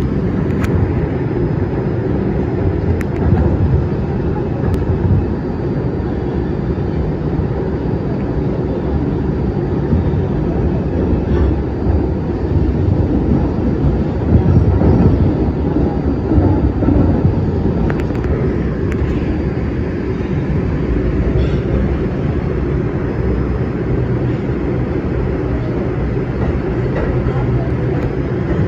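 R142 subway train running through a tunnel, heard from inside the car: a steady rumble of wheels on rail with a few sharp clicks along the way.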